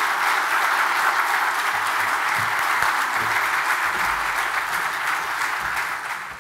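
Audience applauding steadily, tailing off near the end.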